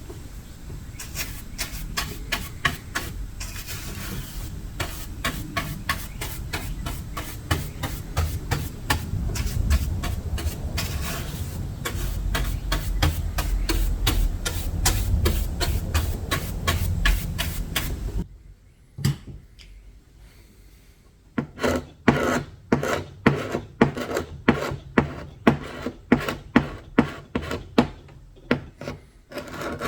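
Old paint and finish being stripped from wood by hand: a quick, steady run of rubbing, rasping strokes, a pause of a few seconds about two-thirds through, then slower, sharper strokes at about two a second.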